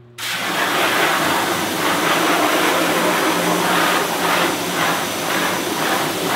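Water jet from a spray wand rinsing a screen-printing screen in a washout booth, washing off the degreaser and haze remover: a loud, steady hiss that starts abruptly and swells and eases as the spray sweeps back and forth across the mesh.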